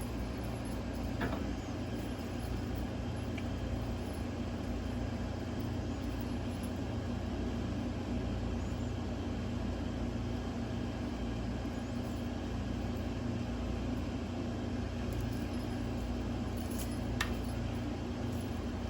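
Steady low mechanical hum and rumble with a faint steady tone, broken by a light click about a second in and another near the end.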